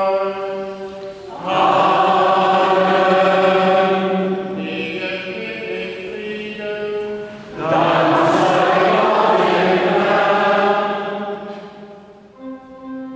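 Church singing in long, held, chant-like phrases, with a steady sustained note underneath. Near the end the singing dies away and organ chords come in.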